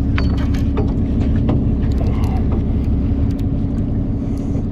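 The fishing boat's motor running with a steady low drone, and a few faint clicks and knocks over it.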